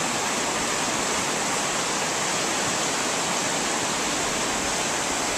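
River water rushing over shallow rocky rapids, a steady, unbroken rush.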